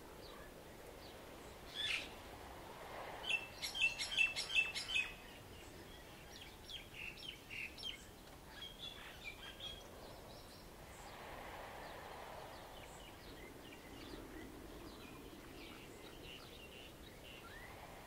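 Birds calling and chirping, loudest in a quick run of sharp chirps about three to five seconds in, with fainter chirps scattered after. Underneath, a soft wash of waves that swells and fades a few times.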